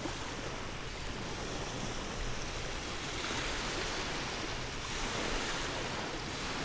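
Small waves breaking and washing steadily on a shingle beach.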